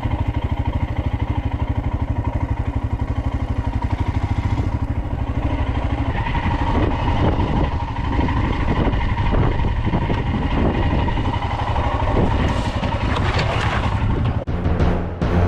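Royal Enfield Himalayan's single-cylinder engine running steadily under way, with wind noise on the helmet-mounted microphone. The sound changes abruptly about a second before the end.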